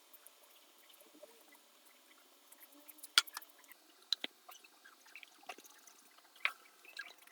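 Scattered light clicks and taps over a faint hiss, the sharpest about three seconds in and another clear one near six and a half seconds.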